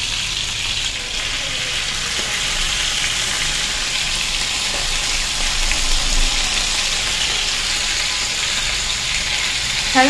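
Food frying in hot oil in a pan, a steady sizzle throughout.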